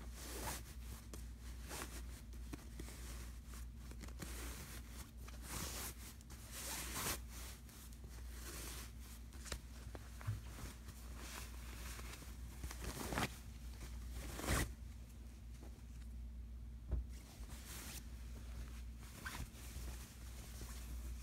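Rustling and swishing of a fabric shower curtain and its packaging being handled, in irregular strokes with a few louder swishes, over a low steady hum.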